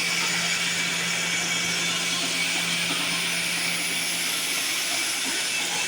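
Large inline turbo-diesel engine being turned over by a small electric motor without firing: a steady hum with a hiss of air moving in and out of the cylinders through the open valve gear.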